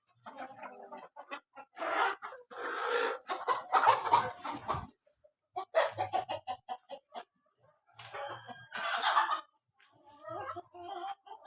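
Kadaknath chickens clucking, with a rooster crowing once in a long call in the first half, then more clucking in short bursts.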